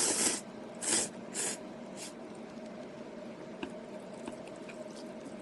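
A person slurping instant ramen noodles and broth in four short, noisy pulls over the first two seconds, the first the longest, followed by a few faint mouth clicks of chewing.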